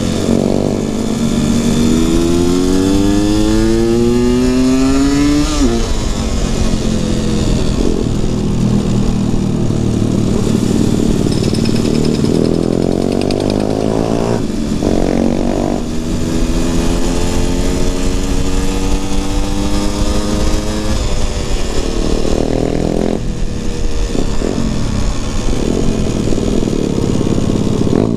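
Motorcycle engine heard from the rider's seat, revs climbing through the gears and dropping sharply at each shift, several times over. The rider says its carburettor is jetted too big, so it bogs and doesn't come down off the revs properly.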